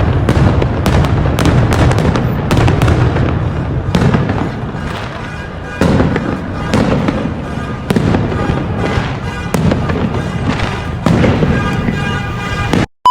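Aerial fireworks display going off close by: a dense, continuous run of bangs and crackles, with heavier booms rising out of it about every two seconds.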